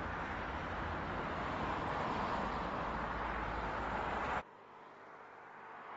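Tyre and wind noise of a Volkswagen ID.4 GTX electric SUV driving at speed on asphalt, a steady rushing with a deep rumble and no engine note. It cuts off suddenly about four and a half seconds in, leaving fainter road noise that grows toward the end.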